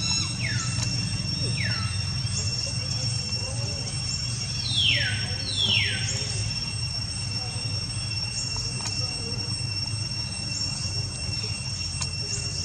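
Short high squeals from macaques, each falling sharply in pitch. A few come near the start and the two loudest come about five seconds in, over a steady high-pitched insect drone.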